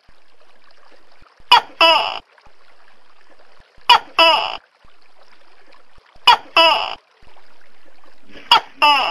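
Tokay gecko giving its two-part "to-kay" call four times, about every two and a half seconds: a short sharp first note, then a longer, drawn-out second note. A faint steady hiss runs between the calls.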